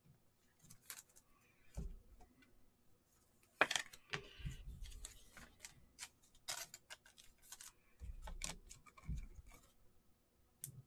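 Faint rustling, taps and clicks of trading cards being handled, with a hard plastic top loader set down on the table and a few soft thumps.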